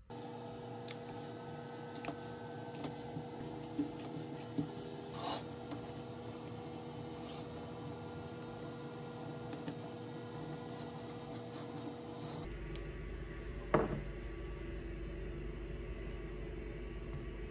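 Gloved hands rubbing and pressing pastry dough into metal tart pans, with scattered light clicks and knocks over a steady room hum. About twelve seconds in, the background changes abruptly to a deeper hum, and a sharp knock follows a second later.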